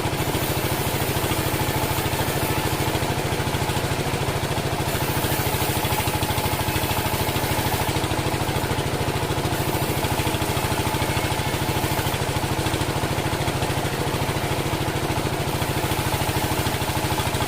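Engine of a homemade band sawmill running steadily at an even speed, a fast regular pulse with no revving or change in load.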